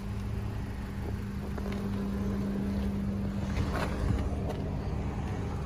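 Steady low rumble with a constant hum of an idling vehicle, with a few faint knocks of handling in between.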